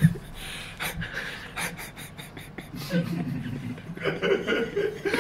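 A man and a woman laughing and chuckling in short, breathy, irregular bursts.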